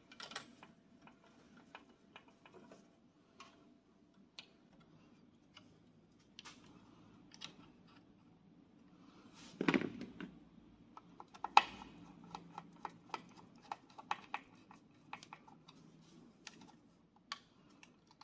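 Scattered light clicks and taps of a screwdriver and small screws against the metal of the welding inverter as its MOSFETs are screwed down. A louder knock comes about ten seconds in and a sharp click shortly after.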